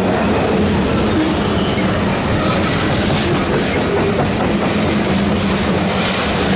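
Freight train of trash container cars rolling past close by: steady rumble of steel wheels on rail, with repeated clicks of the wheels over the rail joints from a couple of seconds in.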